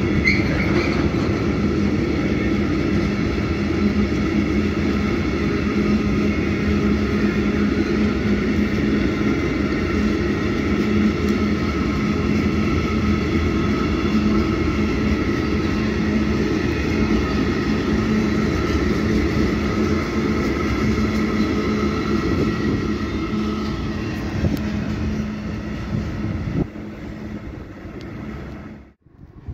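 Freight train of hopper wagons rolling past close by: a steady rumble of wheels on rail with a steady high whine over it. It drops off sharply near the end.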